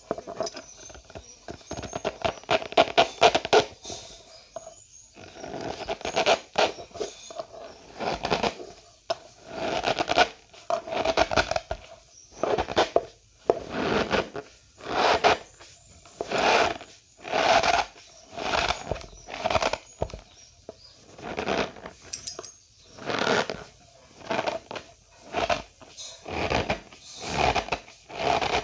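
Cornstarch powder being squeezed and pressed by hand, each squeeze giving a short squeaky crunch. The squeezes come thickly at first, then settle to about one a second. The squeak is the starch grains rubbing against each other as the powder packs together.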